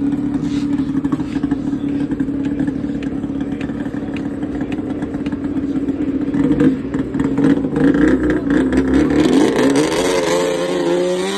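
Race snowmobile engine running steadily, with light clatter over it; in the last couple of seconds the pitch climbs as the engine revs up.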